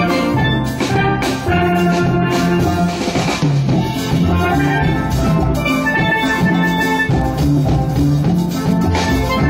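Steel drum band playing a tune: steelpans ringing out pitched notes over low bass notes and a steady drum beat.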